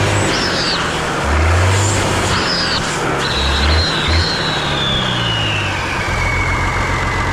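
Massey Ferguson 95X tractor's turbocharged diesel engine running. Its low note swells in a few short spells during the first four seconds, and a high whine falls steadily in pitch over the second half.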